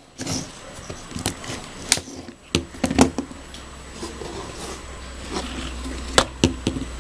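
Handling sounds of a Toshiba 803T clamshell phone on a wooden table: a scattered series of sharp plastic clicks and knocks as the phone is flipped open and moved about.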